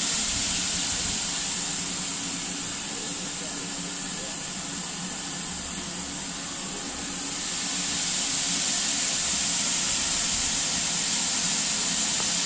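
Steady hiss of steam escaping from a standing GWR 56XX 0-6-2 tank locomotive. It eases for a few seconds in the middle and comes back full near the end.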